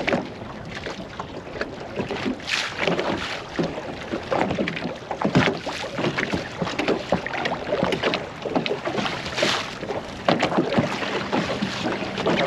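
Water slapping and splashing against the hull of a small boat in a chop, with wind buffeting the microphone. A faint steady hum of the boat's motor comes in about halfway through.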